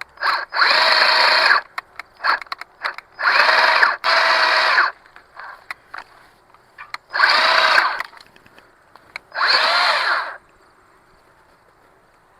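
Cordless electric chainsaw run in four short bursts of about a second each, cutting through pine branches, with faint clicks and snaps in the pauses between bursts. It is running on a small 1.5 battery that is nearly flat.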